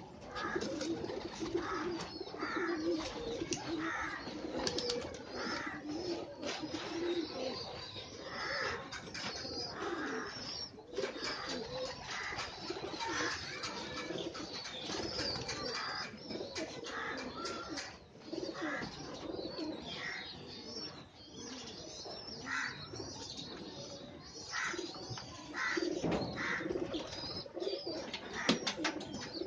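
Many domestic pigeons cooing, their low coos overlapping and repeating.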